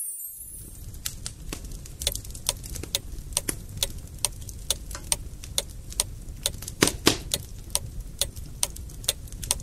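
Wood fire crackling in a fireplace: irregular sharp pops over a low rumble, with the loudest pops about seven seconds in.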